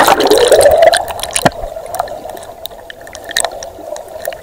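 Muffled underwater sound of river water around a submerged camera: a loud rush of water at first, easing after about a second into a steady drone with scattered clicks and pops of bubbles.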